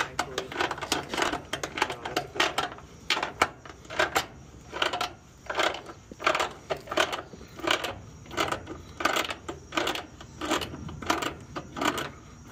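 Ratcheting wrench clicking in quick bursts, about two a second, with each swing of the handle as it runs a bolt down through the metal mounting bracket at the base of an outdoor heat pump condenser.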